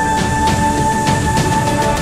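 Background music: held tones over a steady beat.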